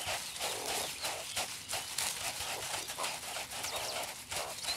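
Meerkat digging in dry sand: rapid, repeated scratching and scraping as its claws throw sand, with a few bird chirps near the end.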